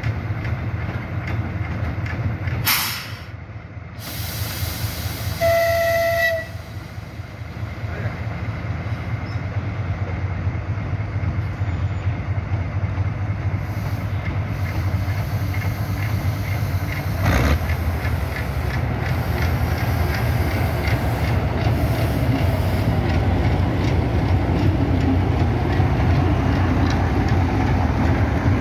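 TU2 narrow-gauge diesel locomotive approaching with a passenger train, its diesel engine rumbling steadily and growing louder as it draws close. The locomotive's horn gives one short blast about five and a half seconds in, and a brief sharp noise comes just before it, near three seconds in.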